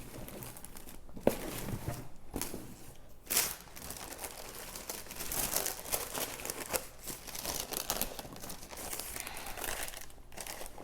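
Paper packaging crinkling and rustling as a gift box is unwrapped by hand, with a sharp tap about a second in and a louder rustle a little past three seconds.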